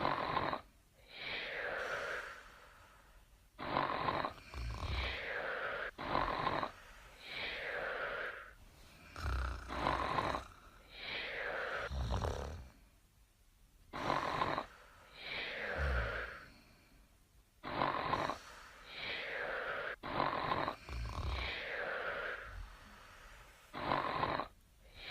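Sleeping wombat snoring in a steady rhythm of about one breath every three seconds. Each breath is a short, sharp snort followed by a longer breath that falls in pitch.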